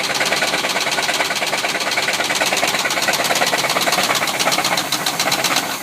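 1973 Chevy C30's 454 big-block V8 idling with a rapid, even knocking: rod knock from a worn-out engine that had been run low on oil.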